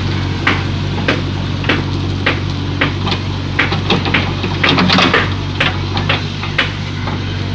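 JCB 3DX backhoe loader's diesel engine running steadily, with a series of sharp knocks roughly every half second that bunch together about five seconds in.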